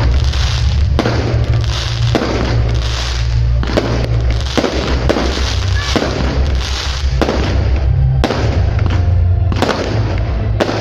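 Fireworks display: aerial shells bursting in a run of sharp bangs, roughly one a second, with crackling between them, over music with a heavy steady bass.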